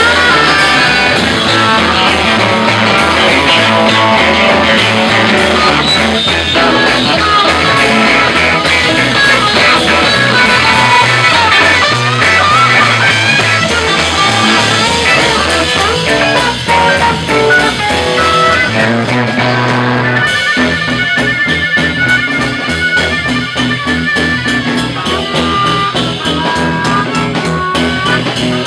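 Live rock and roll band playing loud: electric guitar over drums and bass. About twenty seconds in, the sound changes and an amplified harmonica, played cupped to a handheld microphone, takes the lead.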